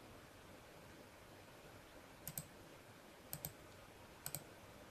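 Computer mouse button clicked three times about a second apart, each click a quick double tick as the button is pressed and released, over a faint room hiss.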